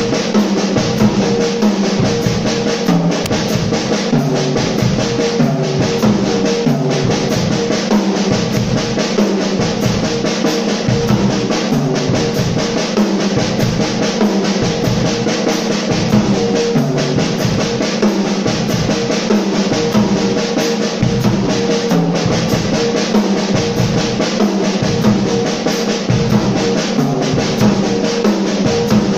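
Sonor drum kit played in a steady, driving groove: bass drum on a regular pulse, snare strikes and a constant wash of cymbals, over a pitched backing that changes chord now and then.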